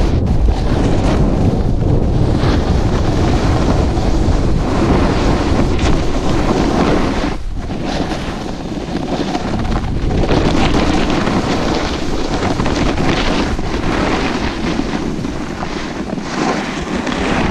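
Wind buffeting the microphone of a camera carried downhill at speed, a loud rough rumble over the scrape of a board or skis sliding on snow.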